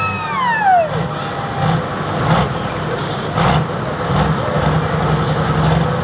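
A John Deere pro stock pulling tractor's turbocharged diesel engine coming off full throttle at the end of a pull: a high whine falls steeply in pitch in the first second, then the engine settles to a steady low idle, with a few short bursts of noise.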